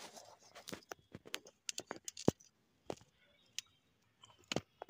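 Soil and fine roots crackling and snapping in short, irregular clicks as a holy basil seedling is pulled by hand out of a lemon tree's root ball, with one louder snap a little past halfway.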